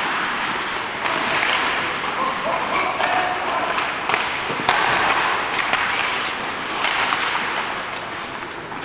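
Ice hockey in play in an indoor rink: skate blades scraping the ice and a steady din of play, with a few sharp knocks of stick, puck or boards, the clearest about halfway through, and spectators talking in the background.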